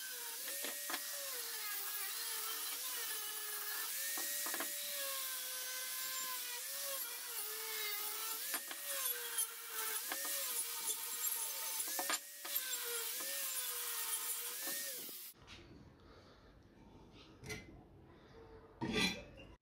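Small handheld angle grinder run in passes over rusty steel angle iron to clean it. Its motor whine dips in pitch and recovers about every two seconds as it is pressed on, over a steady hiss of grinding. It stops about fifteen seconds in, leaving a few light knocks.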